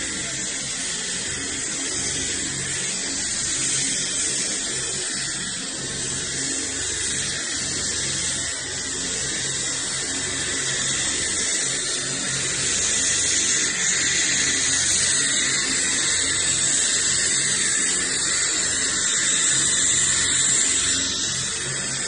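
Helicopter turbine engine running on the ground: a steady high-pitched whine over a loud rush, with a low hum underneath.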